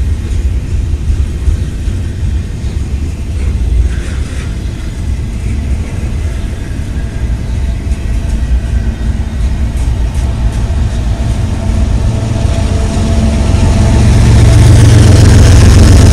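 Double-stack container freight train rolling past, a steady low rumble of the cars on the rails. Over the last few seconds a diesel locomotive's engine drone grows louder as a mid-train unit draws near.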